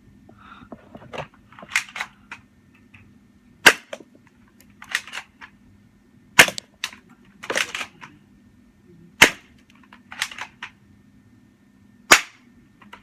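BB gun fired four times, a sharp crack roughly every three seconds, with a softer, longer noisy sound between the shots.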